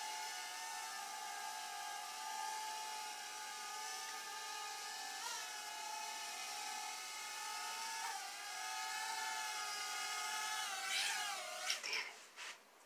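Small toy quadcopter drone's propellers whining steadily while it hovers, the pitch wavering briefly a few times as it corrects. Near the end the whine rises and falls, then winds down and stops as the motors cut.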